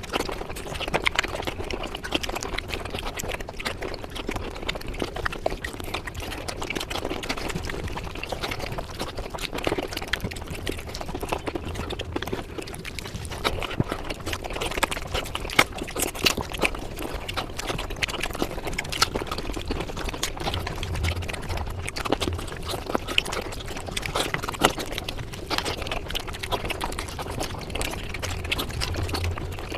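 Eating sounds, chewing and mouth noises, sped up to five times normal speed, forming a dense, continuous stream of rapid clicks.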